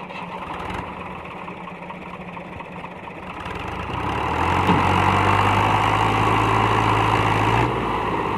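Fiat 480 tractor's three-cylinder diesel engine working as it pulls a trolley loaded with soil over soft dirt. The engine note grows louder about four seconds in as it takes the load.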